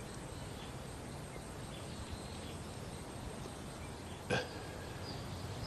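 Quiet outdoor ambience with a steady background hiss and faint, scattered high chirps, broken by one short sharp sound about four seconds in.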